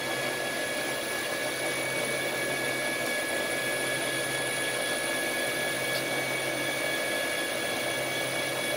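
Metal lathe running under power feed while a boring bar takes a light 10-thousandths internal boring pass in an ASP grip extension, a very smooth cut. The sound is a steady machine whir with a few constant high tones and a low hum.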